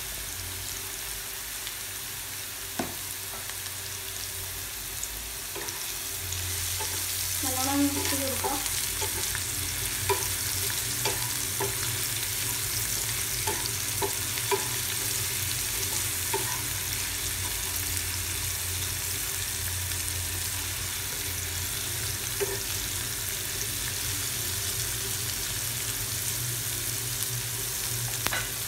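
Sliced shallots and chopped spinach stems sizzling in oil in a non-stick frying pan, stirred with a wooden spatula that knocks and scrapes against the pan now and then. The sizzling grows louder about six seconds in.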